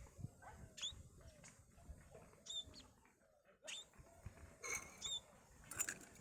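Small birds chirping faintly, with many short calls that fall in pitch repeated throughout, and a few brief clicks or knocks near the end.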